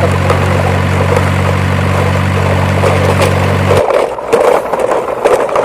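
Steady low engine-like drone as the toy trucks drive on, cutting off suddenly about four seconds in; after it, scraping and light clicking.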